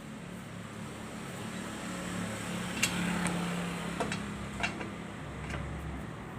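Renault Clio engine running with a steady low hum; the car was brought in for a knocking noise in the engine. A few sharp, irregular clicks stand out about halfway through.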